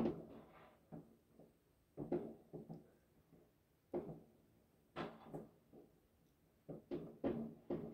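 Distant New Year's fireworks: about nine faint, scattered bangs at irregular intervals, each trailing off briefly, coming thicker near the end.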